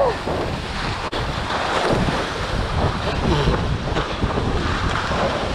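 Wind buffeting the microphone and water rushing and spraying along the hull of an International 14 skiff sailing at speed through choppy water.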